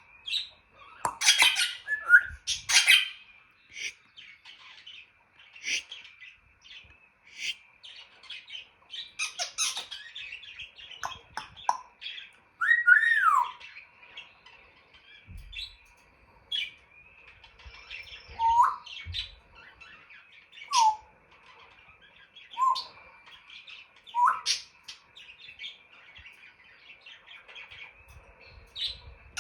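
African grey parrot vocalising: sharp clicks and harsh squawks, loudest in the first few seconds, then a run of short whistles that fall in pitch.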